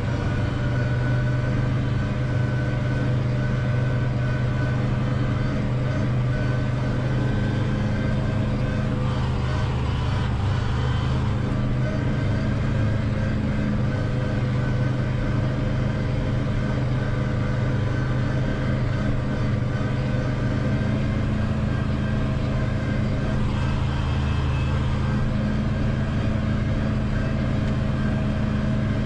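Valtra N 121 tractor engine running steadily at working speed, heard from inside the cab, while it drives the Claas Corto 290 FN front mower and JF SB 2802 rear mower through the power take-off. The hum is even, with no revving or breaks.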